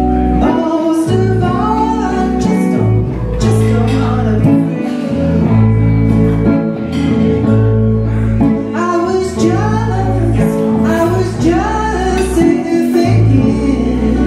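Live blues band: a woman sings into a microphone over electric and acoustic guitars, in two sung phrases with a short instrumental stretch between them.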